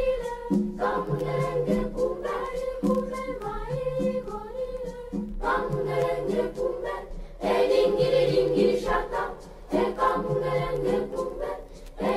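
Background choral music: a group of voices singing, growing louder about seven seconds in.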